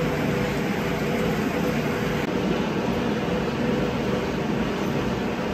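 Indoor stationary bike whirring steadily as it is pedalled at an easy recovery effort, with a steady hum and a broad even air noise.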